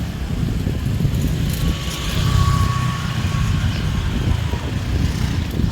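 Road traffic on a busy street: a steady low rumble of engines passing close by.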